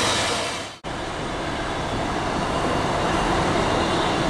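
Train wagons rolling past, fading out to a moment's silence about a second in; then a diesel-hauled container train approaching round a curve, a steady rumble that slowly grows louder.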